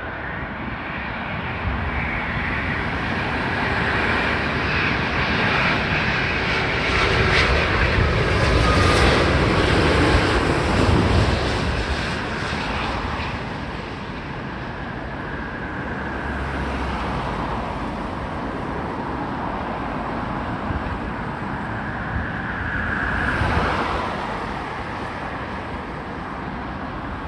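Boeing 787-8 Dreamliner airliner's jet engines on landing approach: a steady rushing jet noise that builds as the aircraft comes close, is loudest about ten seconds in, then fades as it lands and rolls away. Near the end a car passes close by, its sound briefly rising and then dropping in pitch.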